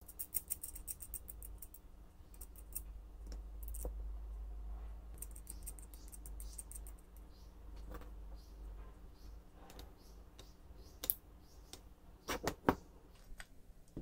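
Rapid small clicks and ticks of metal trigger parts and screws being handled and fitted on a wooden crossbow stock, with a few sharper knocks near the end.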